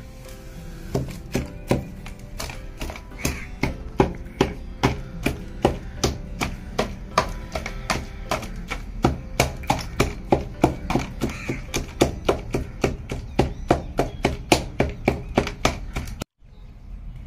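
A black stone pestle pounding mashed jujube fruit with jaggery and chilli paste in a steel plate: steady thuds about three a second, stopping abruptly near the end.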